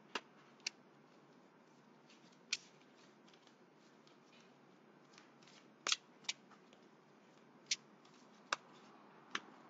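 Faint, scattered clicks and snaps of oracle cards being handled and drawn from a deck, about eight short clicks spread out with quiet between them.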